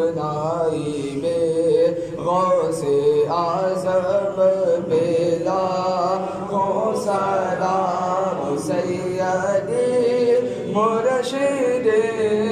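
A man's solo unaccompanied Islamic devotional chant, sung in long melodic phrases whose pitch rises and falls, with short breaks between phrases.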